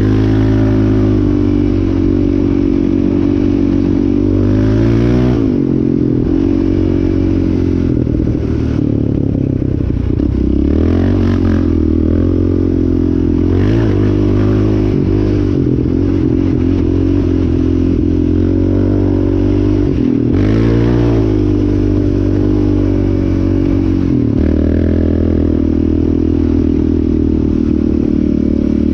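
Yamaha Raptor 700R's single-cylinder four-stroke engine running under throttle on the ride. The engine note rises and drops several times as the throttle opens and closes and the gears change.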